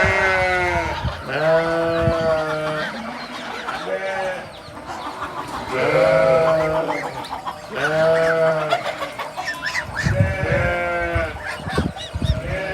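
Sheep bleating, a run of wavering calls about a second long, one after another every second or two, from several animals.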